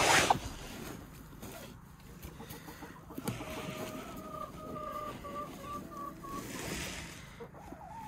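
Chicken calling: a drawn-out run of clucking notes at a steady pitch, lasting about three seconds and starting about three seconds in. A short, loud burst of noise right at the start.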